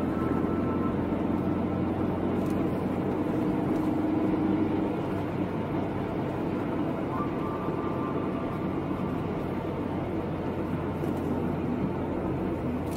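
Steady engine and tyre noise of a moving car, heard from inside the cabin, with a constant low hum.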